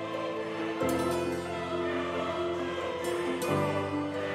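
Background music: long held chords that change about a second in and again after three seconds.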